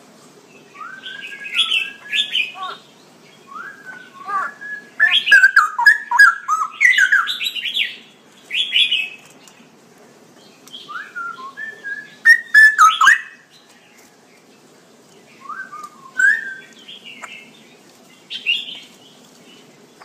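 A caged songbird singing: phrases of loud whistled and chirping notes that glide up and down, coming in bursts with short pauses between them, the loudest runs about a quarter and two-thirds of the way through.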